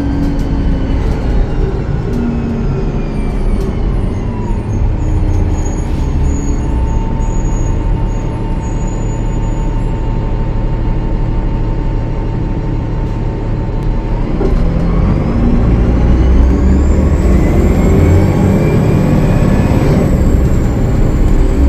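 Cummins ISL9 diesel engine of a Gillig Low Floor transit bus heard from on board. The whine falls as the bus slows in the first few seconds and holds steady through the middle. About 14 seconds in, the engine and turbo whine rise as the bus accelerates, then drop shortly before the end.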